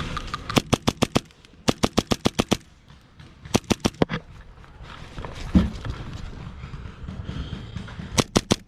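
Airsoft gun firing in short full-auto bursts: four strings of rapid sharp cracks, about ten shots a second, with a single low thump a little past halfway.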